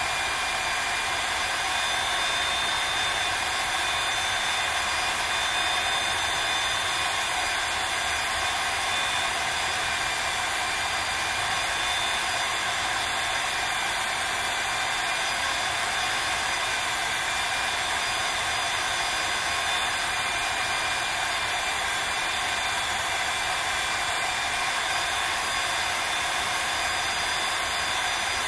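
Motorized winch running at a steady speed, hauling a log section up to a highline: a constant whine with a hiss.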